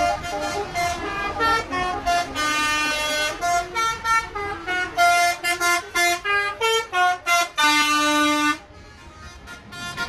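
Telolet bus horns playing quick runs of short pitched notes, the buses answering one another, with a longer held chord shortly before a drop to a quieter stretch near the end.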